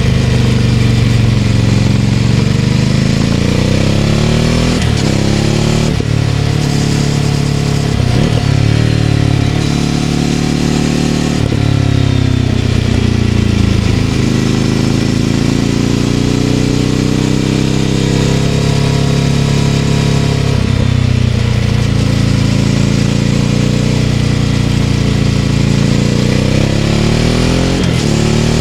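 Ducati Scrambler 800's air-cooled L-twin engine breathing through a Leovince LV-10 exhaust, under way on the road. The engine note rises and falls several times as the bike accelerates and rolls off, with quick breaks in the note at the gear changes.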